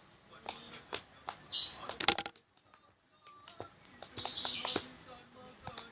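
Soft slime squished and stretched by hand, making sticky clicks and popping crackles, with two louder squelching bursts about a second and a half in and about four seconds in. The baby oil worked into it is what makes it pop.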